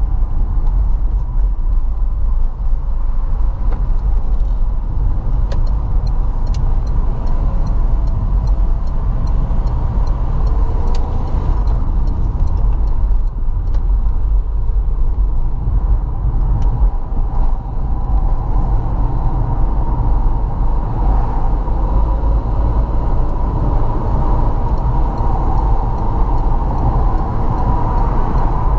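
Car driving at a steady pace: continuous low road and engine rumble with a faint steady whine.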